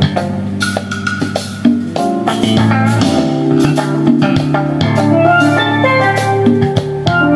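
Instrumental jazz track with drums and bass, played back through a 140-watt driver amplifier in stereo into 3-way speakers (tweeter, 6-inch and 12-inch drivers) as a sound-system test.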